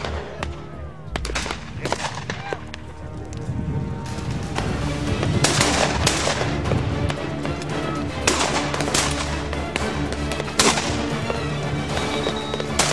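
Several shotgun shots at driven red-legged partridges, fired at uneven intervals and some in quick pairs, over steady background music.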